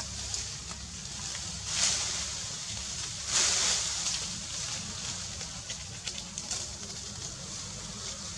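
Leaves and branches rustling as a macaque climbs in a tree, in two bursts about two and three and a half seconds in, over a steady low rumble, with a few light clicks later on.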